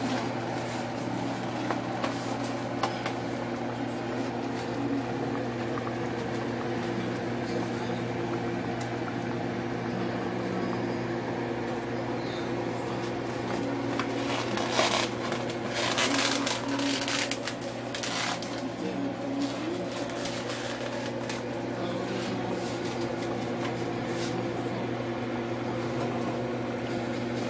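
A steady electrical hum of a kitchen appliance, with faint voices underneath. A few sharp clicks and clatters come about fifteen to eighteen seconds in.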